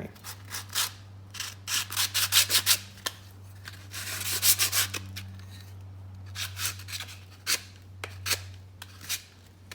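Hand sanding: sandpaper rasping back and forth over a surface in irregular groups of quick strokes, under a steady low hum.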